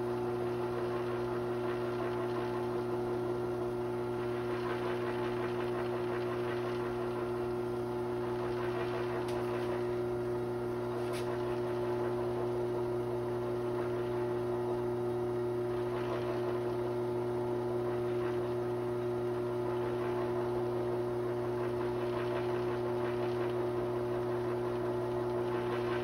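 Wood lathe running steadily with a pen blank spinning on the mandrel: a constant motor hum with several steady tones over a faint hiss.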